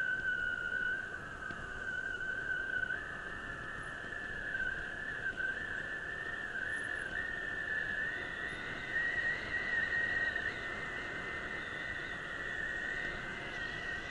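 Bicycle brakes squealing in a steady high whistle, the pitch stepping up a little several times over the first half, over continuous wind and tyre rush.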